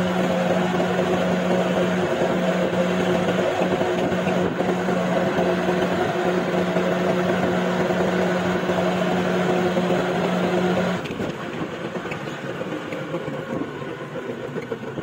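Three-wheeled auto-rickshaw driving along, heard from the passenger seat: a steady hum over road noise. The hum stops and the sound gets quieter about eleven seconds in as the rickshaw slows for a turn.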